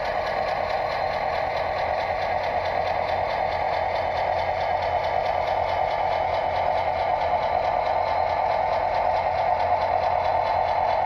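Model BNSF diesel locomotive running slowly along the layout track, a steady mechanical running sound that grows slightly louder as it comes closer.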